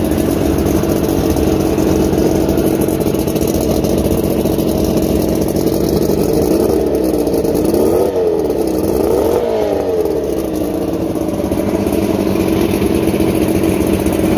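Mercury 950SS 90-cubic-inch inline-six two-stroke outboard running steadily on a test stand. It revs up and drops back twice, about seven and nine seconds in.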